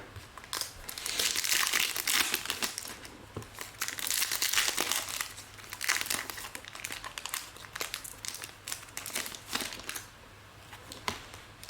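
Plastic packaging crinkling as trading cards and their wrappers and sleeves are handled, in irregular bursts with a few sharp clicks, easing off briefly near the end.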